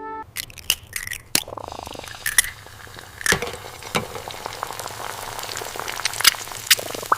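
Food sizzling as it fries in a pan, with frequent sharp clicks and clinks.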